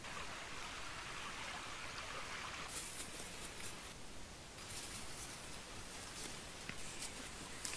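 Steady rush of a river's flowing water, with brief high crackles of rustling leaves and branches scattered through the second half.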